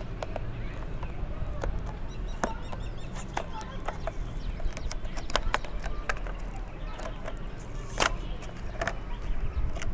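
Cellophane wrap on a small cardboard box crinkling and crackling as fingers pick and peel at it, with irregular sharp clicks over a steady low background rumble.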